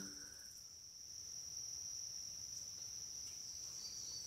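Faint, steady high-pitched insect chorus, one unbroken trill; a second, slightly lower insect note joins near the end.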